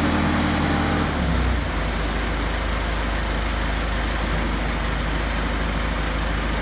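1986 John Deere 455E crawler loader's diesel engine running; about a second in its speed drops and it settles into a steady, lower-pitched running.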